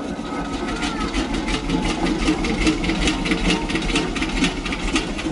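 Steam engine chuffing in a steady, quick, even rhythm.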